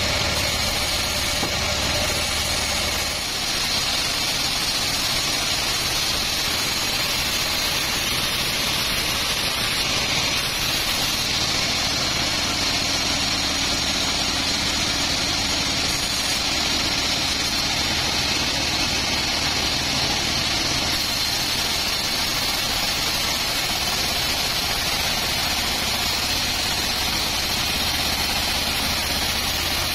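Vertical band sawmill running steadily as it rips a teak log lengthwise: a continuous machine noise with a constant high whine, its low hum changing about three seconds in.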